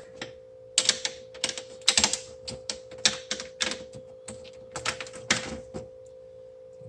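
Irregular sharp clicks and clatters of small metal and plastic computer parts being handled and pulled apart, over a steady faint hum; the clicking stops about a second before the end.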